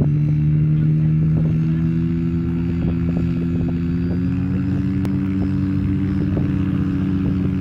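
Aerotow tug aircraft's piston engine idling steadily, its note creeping up slightly about halfway through. Light ticks and a single sharp click sound over it.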